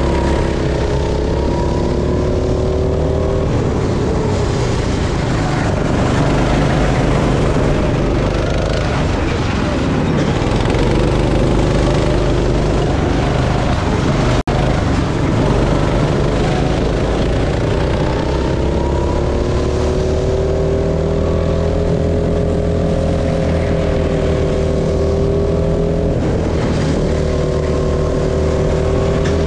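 Go-kart engine running under load, its pitch rising and falling with the revs as the kart speeds up and slows. There is a momentary break in the sound about halfway through.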